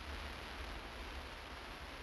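Steady rain falling, an even continuous hiss, with a low rumble underneath.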